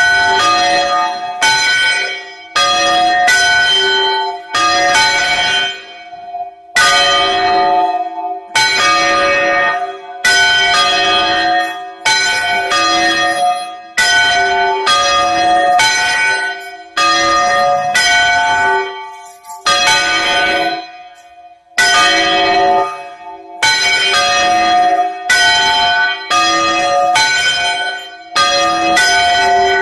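Two bells swung full circle by hand in the Spanish bandeo style, their clappers striking about once or twice a second in an uneven rhythm, each stroke ringing on into the next. The strikes pause briefly twice.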